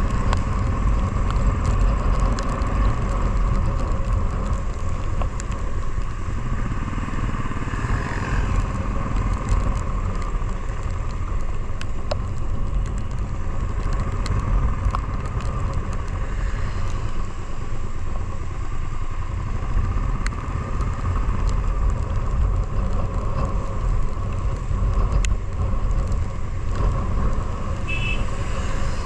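Motorcycle running steadily while riding uphill, with a heavy low rumble under it.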